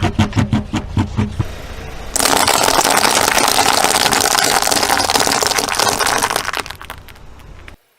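Car engine running as the tyre crushes objects, with rapid crackling and clicking. About two seconds in, a dense crackling hiss takes over for several seconds, fades, and cuts off abruptly just before the end.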